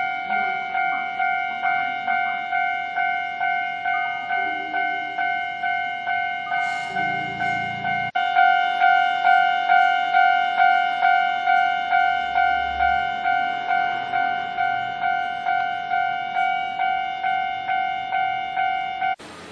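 Japanese railway level crossing warning bell ringing its repeating electronic "kan-kan" tone, about two strikes a second, signalling that a train is approaching. It stops suddenly near the end.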